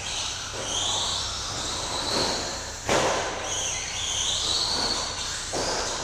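Electric motor of a 1/10 scale Team Associated SC5M short course RC truck whining, rising and falling in pitch as it speeds up and slows around the track. A few sharp knocks come through, the loudest about three seconds in.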